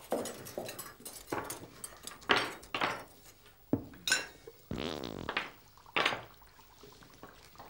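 Cutlery, plates and a serving pot clinking and knocking at a dinner table as a hot stew is served. There is a run of separate short clinks, with one longer scraping sound about five seconds in.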